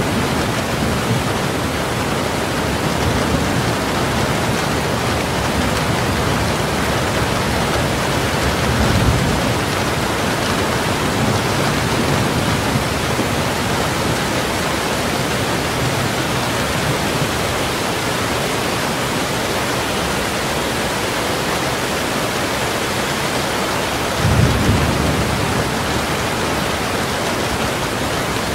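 Heavy rain falling steadily on window glass, with two short low rumbles of thunder, about nine seconds in and again about twenty-four seconds in.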